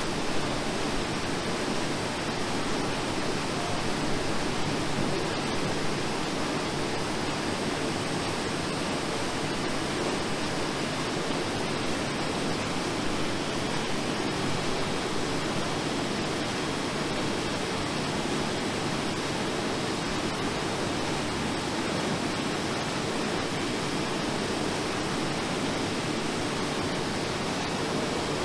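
Steady, even machine noise of a bookbinding workshop, with no separate knocks or clicks standing out.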